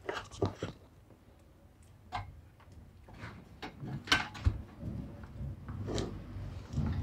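Several sharp clicks and light knocks of hands handling an opened LCD monitor's metal chassis and plugging in its power cable, the loudest around four seconds in.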